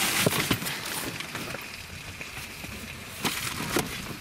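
Rustling and knocking of camping gear being shifted and a tent in a nylon bag pulled out of a car boot's under-floor compartment, loudest in the first moment, with a couple of sharp knocks near the end.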